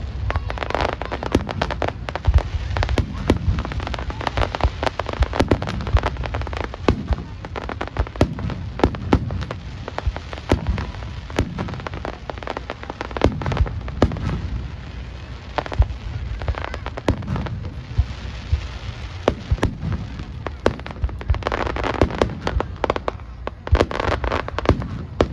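Fireworks display: aerial shells bursting one after another with deep booms, many bangs in quick succession and crackling between them.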